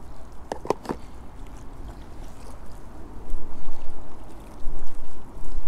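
Wind buffeting a clip-on microphone: a low rumble that comes in loud gusts from about three seconds in, with a few short clicks near the start.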